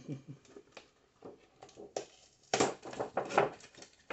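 Clear plastic packaging tray crinkling and clicking as it is handled, in irregular bursts, loudest from about two and a half seconds in.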